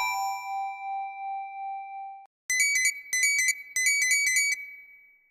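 Motorola MS700 mobile-phone ringtones played through Yamaha's MCP-MA7 ringtone player. The last held chime note of one ringtone cuts off about two seconds in; after a short gap the next ringtone starts as three quick runs of rapid high electronic beeps that fade out near the end.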